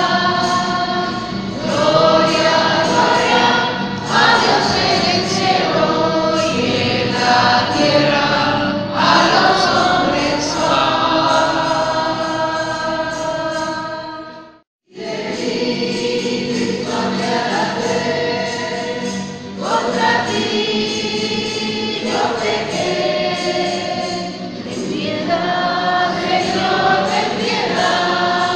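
Choir singing religious music, with many voices holding long notes. The sound cuts out briefly about halfway through, then the singing resumes.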